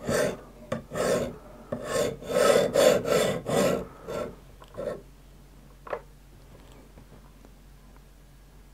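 A sharpening stone rasping back and forth along a steel knife blade held in a guided sharpening clamp. There are about ten quick strokes in the first five seconds, a single faint stroke a second later, then it stops.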